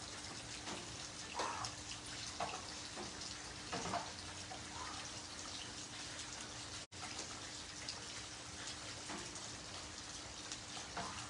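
Heavy rain falling on wet pavement and puddles: a steady hiss with scattered splashes of individual drops. The sound drops out for an instant about seven seconds in.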